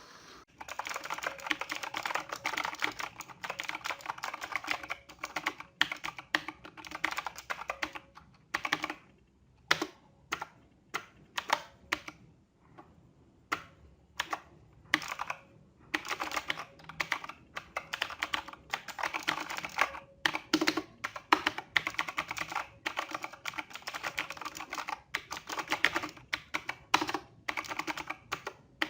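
Digital Alliance Meca Warrior mechanical keyboard being typed on: a fast, continuous clatter of keystrokes. The typing slows to scattered single key presses from about eight seconds in, then picks up again to fast typing about halfway through.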